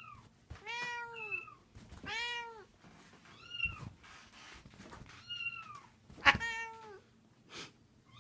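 Cats meowing: about six meows, one every second or so, some fuller and lower-voiced and others higher and thinner. A sharp click sounds about six seconds in.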